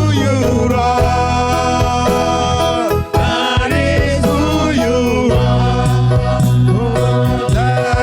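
Live gospel worship band music: a bass line and a steady drum beat under held, sliding melody notes.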